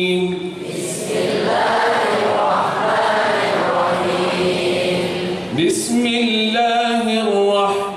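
A congregation of many voices chanting an Arabic recitation line in unison, repeating it after the teacher, their voices blurred together. About six seconds in, a single man's voice takes up the melodic Quran recitation again through a microphone.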